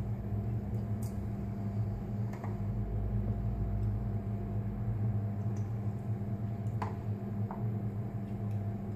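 A steady low hum with a few faint light clicks from a glass jar of olives being handled over a metal roasting pan.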